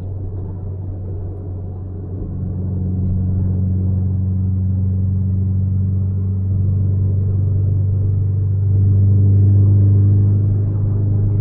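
Exhaust drone from a Toyota four-cylinder engine fitted with an aftermarket muffler. It holds a steady pitch and grows louder about two seconds in, then again near the end.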